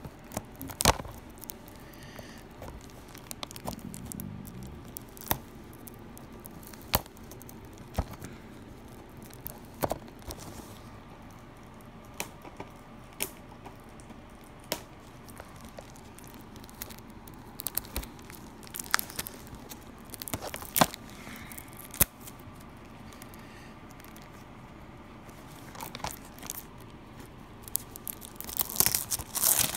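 Plastic packaging on a Blu-ray set being picked at and torn open by hand: scattered sharp clicks and crackles, building into a run of crinkling near the end.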